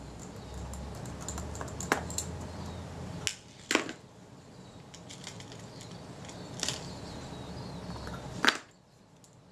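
Small metal tools clicking against metal: a jeweller's screwdriver and tweezers being set down, picked up and touched to the lens body's tiny screws, about five sharp clicks in all. Under them runs a low steady hum that cuts off near the end.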